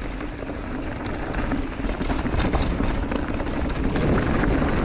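Mountain bike rolling fast down a rocky dirt trail: a continuous low rumble of wind buffeting the microphone, with many small clicks and knocks of the tyres and bike over rocks.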